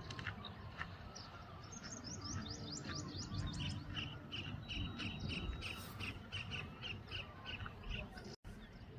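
Birds chirping: a fast run of short, high chirps, several a second, with other twittering around it. The sound cuts out for an instant near the end.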